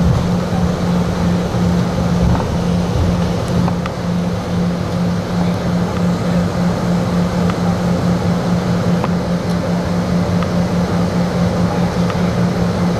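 Cabin noise of an Embraer Legacy 600 business jet taxiing: a steady drone with a strong low hum from its idling turbofan engines.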